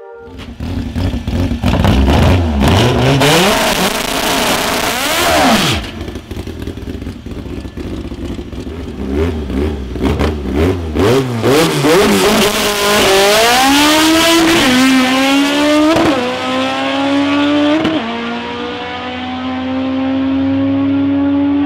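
Naturally aspirated Honda CRX drag car. For the first few seconds the engine revs hard over heavy noise, as in a burnout, followed by several sharp rev blips. Then comes a full-throttle launch: the engine climbs in pitch and drops at three upshifts, fading as the car pulls away down the strip.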